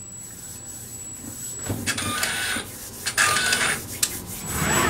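Freejet 330TX printer starting up on its first power-on after a carriage belt replacement: its mechanism runs in two short bursts about a second apart as the print carriage travels along its rail. A rising motor whine begins near the end.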